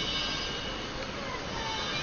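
A steady, noisy metallic drone with several high whining tones held above it and brief faint whistles. This is the unexplained 'Earth creak' sky sound, whose source has not been found.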